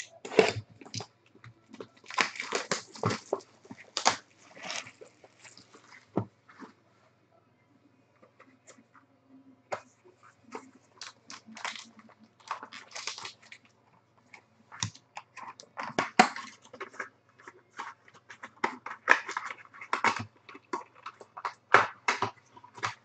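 Hands opening a sealed trading-card box: cardboard flaps, wrapping and a foil-wrapped card pack crinkling, rustling and tapping in irregular bursts, with a short lull partway through.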